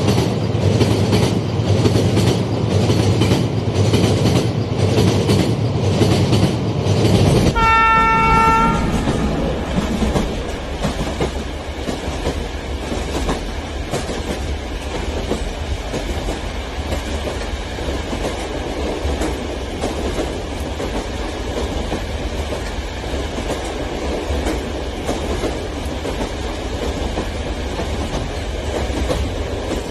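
Train running with a rhythmic clickety-clack of wheels over rail joints and a low rumble. About seven and a half seconds in there is a single horn blast lasting about a second and a half. After that the running sound settles into a steadier, quieter rumble.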